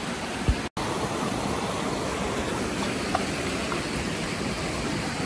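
Steady rush of a shallow mountain river running over stones and riffles. A brief low thump comes about half a second in, and the sound cuts out for an instant just after it.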